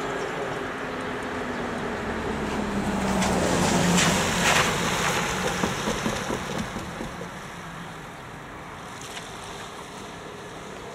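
A car drives over a railway level crossing on a wet road: engine and tyre hiss swell to a peak about four seconds in, with a few knocks as the wheels cross the rails. The sound then fades away as the car moves off.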